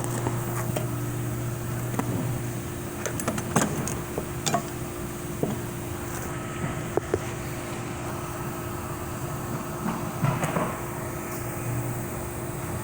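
Irregular metallic taps and clicks of a flathead screwdriver being struck and worked against the servo snap ring in a 4L60E transmission case, to knock the ring loose, over a steady hum from a fan or compressor.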